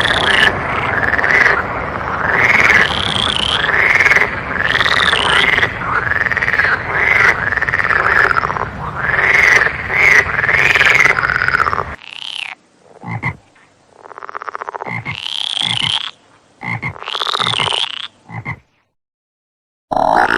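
Frogs croaking: a dense chorus of many overlapping calls, each rising and falling in pitch, over a steady background hum of more calls. About twelve seconds in it cuts abruptly to a quieter recording of separate calls spaced apart, with a second of silence near the end.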